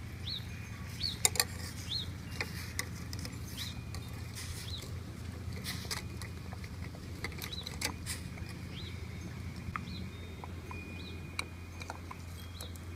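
A metal spoon clinking against a stainless saucepan and a ceramic bowl as an egg is scooped out of hot water, with the loudest clicks about a second in. A small bird chirps over and over, more often early and more sparsely later, over a low steady hum.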